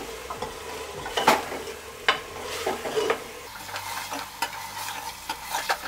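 Metal ladle scraping and knocking against an aluminium pressure cooker at irregular moments as meat pieces are stirred, over a steady sizzle of the meat browning in oil with ginger-garlic paste on a medium flame.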